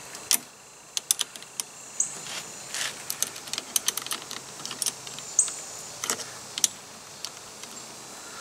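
Open-end wrench clicking and clinking against a car battery terminal clamp's nut as it is worked loose, in short irregular metal taps.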